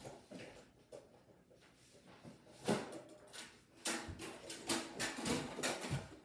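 Knocks, thumps and clatter of someone moving about in a house, a few faint ones at first, then busier and louder from about three seconds in, as someone comes back toward the table.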